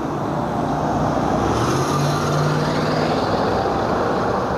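Old farm tractor engines running as a slow convoy drives past; about a second and a half in, one engine's pitch rises and holds for over a second before falling away.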